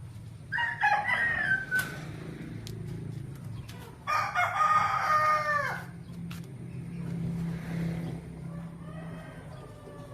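Roosters crowing: a crow about half a second in, then a louder, longer one about four seconds in whose pitch drops at the end, and a fainter crow near the end.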